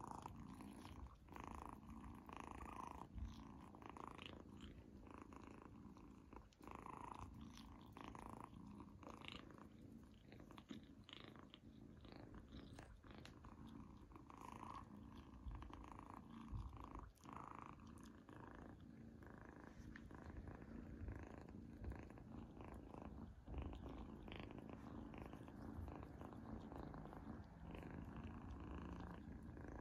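A kitten purring steadily and quietly close up, with scattered faint clicks.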